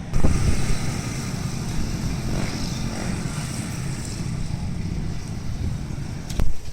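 Storm wind blowing in strong gusts and buffeting the microphone with a low rumble; a sharp knock near the end.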